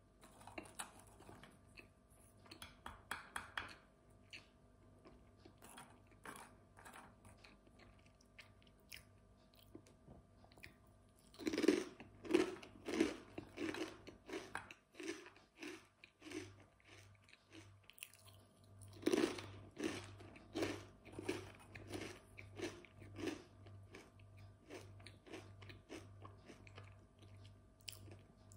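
A person biting into crunchy food and chewing it, close to the microphone. There are two crisp bites, one near the middle and one about two-thirds through, each followed by a run of steady chewing at about two chews a second.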